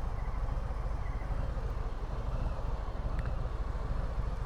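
Harley-Davidson Sport Glide's Milwaukee-Eight 107 V-twin running steadily at low revs through a Screamin' Eagle aftermarket exhaust.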